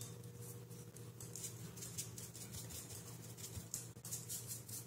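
Faint, irregular scratchy strokes of a paintbrush working acrylic paint over a carved wooden frieze, over a steady low hum.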